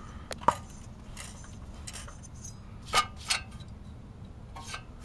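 A few sharp metallic clinks and taps from tools or loose engine parts being handled, the loudest about half a second in and another pair about three seconds in, over a low steady hum.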